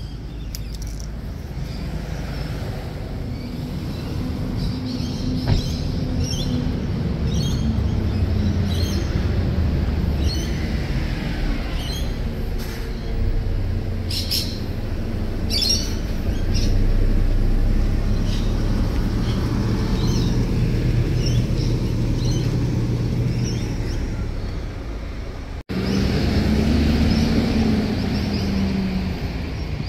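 Birds chirping in short high calls over a steady low mechanical rumble. The sound cuts out for an instant about 26 seconds in, then resumes.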